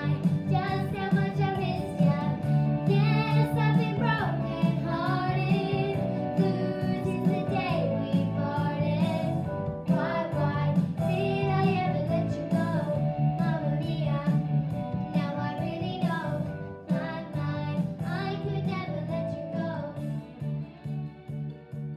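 Two young girls singing a duet over a backing track. Near the end the singing stops and the accompaniment fades away.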